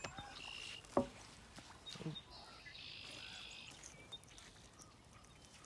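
Red-winged blackbird singing faintly: a short buzzy trill, then a longer one a couple of seconds later. A couple of soft knocks or thumps fall in between, the loudest about a second in.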